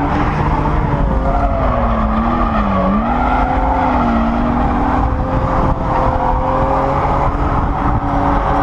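BMW E36 M3's straight-six engine held at high revs while drifting, heard from inside the cabin, the revs dipping about two to three seconds in and climbing back, over a steady rush of tyre noise.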